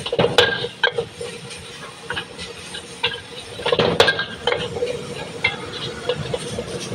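Metal spatula scraping and clanging against a steel wok as fried rice is stirred and tossed over a high flame, the rice sizzling. A cluster of knocks comes in the first second and the loudest clang about four seconds in.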